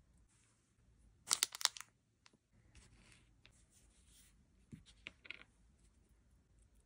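Wooden rubber stamps and paper being handled: a quick crackly run of clicks and rustles about a second in, softer rustling after it, then a few light taps near the middle as a small ink pad is dabbed onto the stamp's rubber.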